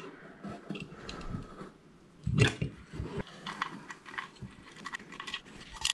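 Small clicks and knocks of a Coast Reels single-action reel's metal spool and backplate being handled and fitted back together, with one louder knock about two and a half seconds in.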